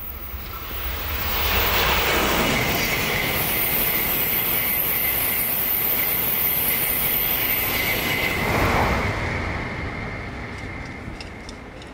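JR West N700-5000 series Shinkansen passing at speed: a rushing noise builds over about two seconds, holds loud for about seven seconds, then fades away. A steady high-pitched tone runs through it.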